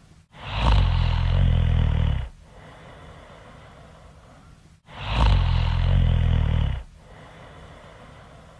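Loud human snoring: two long snores of about two seconds each, roughly four and a half seconds apart, with a fainter steady hiss between them.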